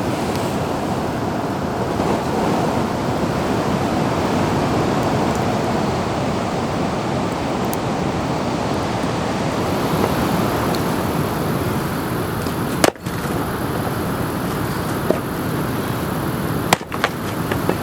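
Steady, loud rushing of water, like a river or waterfall and rain, with a couple of brief clicks near the end.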